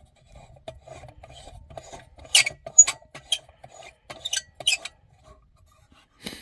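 Metal parts of a Svea 123R brass camping stove scraping and rasping against each other as they are fitted together, with a cluster of sharp clinks about halfway through.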